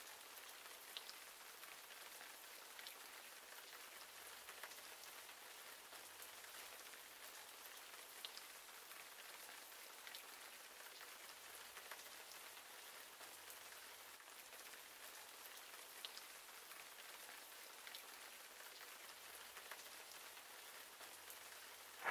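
Near silence: a faint, even hiss with a few soft ticks scattered through it.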